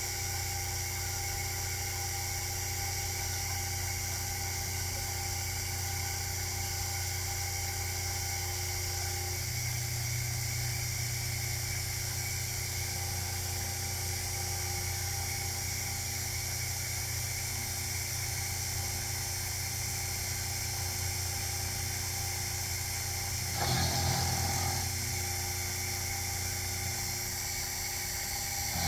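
Sherline milling machine's spindle motor running steadily with a constant whine, a small shift in its low hum about ten seconds in. About twenty-four seconds in a brief, louder rasping patch lasts roughly a second.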